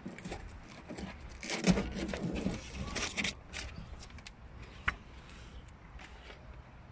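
Close-up rustling, scraping and knocking from things being handled, busiest in the first half, with one sharp click about five seconds in.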